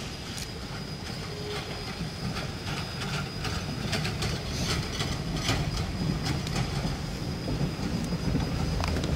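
Log cars and a wooden caboose rolling past on jointed track: steel wheels clicking over the rail joints, with a low rumble and a thin, steady wheel squeal. The clicking swells as the caboose passes, then eases as the train moves away.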